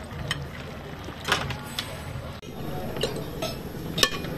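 Metal utensils clinking against a pot and a plate: a few short, sharp clinks scattered through, the loudest near the end.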